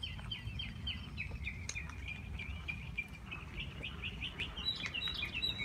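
A small bird chirping rapidly: short high notes that slide downward, about five a second, in a continuous run, with a steadier high note near the end. A low steady rumble runs underneath.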